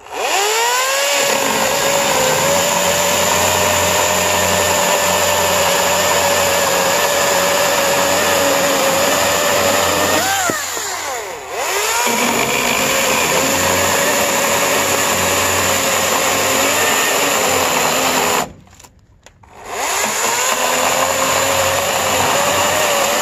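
EGO 14-inch 56-volt cordless chainsaw cutting through a thick hardwood beam, its electric motor giving a steady whine under load over the chain's rasp. The whine rises as it spins up at the start, wavers and dips about ten seconds in, then stops for about a second near the end and spins up again.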